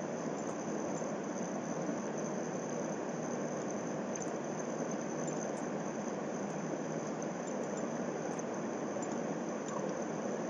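Steady background hiss of room and microphone noise, with a few faint, brief clicks scattered through it.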